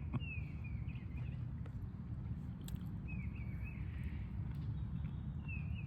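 A bird calls three times with short falling chirps over a steady low rumble of outdoor background noise.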